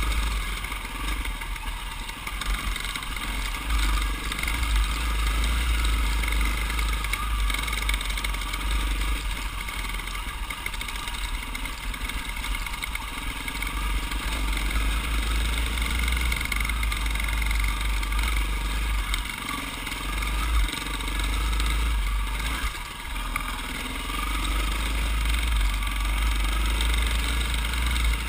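Dirt bike engine running at steady trail-riding speed, heard from a camera mounted on the bike, with heavy wind rumble on the microphone.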